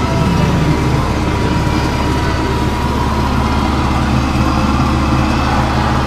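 Tractor engine running steadily under load while pulling a disc harrow through grain stubble, heard from inside the cab.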